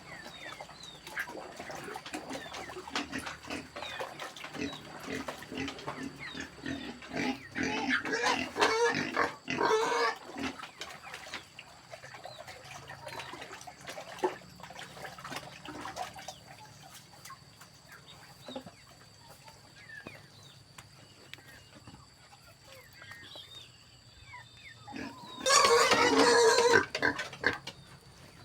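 Farm animals calling: many short, high chirping calls throughout, with two louder outbursts of calls about eight to ten seconds in and again around twenty-six seconds.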